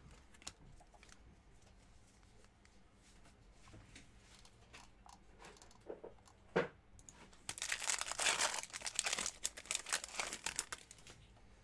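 Foil wrapper of a 2020 Donruss Optic football card pack being torn open by hand, crinkling and tearing for about three and a half seconds, starting a little past the middle.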